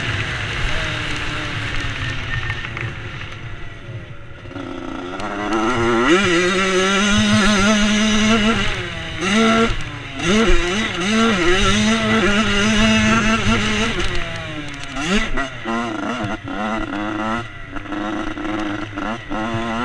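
Yamaha YZ 85 two-stroke motocross engine under way. The pitch falls off over the first few seconds, then climbs in repeated rising sweeps as the bike pulls through the gears, easing off briefly about three quarters of the way through before revving up again.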